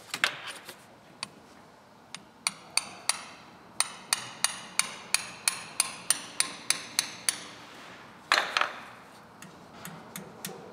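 Hammer tapping on a small socket to seat a new valve stem seal on a 1995 Cummins 12-valve diesel head: a quick run of light metallic taps, about three a second, each with a short ring. There is a louder knock at the start and the loudest one about eight seconds in.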